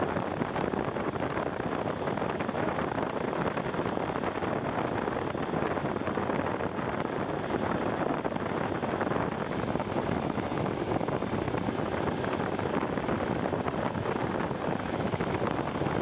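Car air-conditioning blower fan running on high, a steady rush of air through the dash vents, with the AC set to its coldest setting on recirculation.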